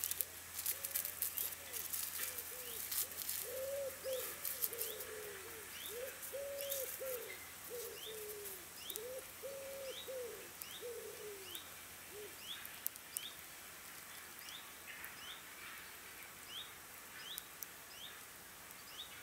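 A wild pigeon cooing in a long run of low coos that stop about two-thirds of the way through, while a small bird repeats a short, high, rising chirp. Crisp crackles in the first few seconds as charred roasted burdock root is peeled by hand.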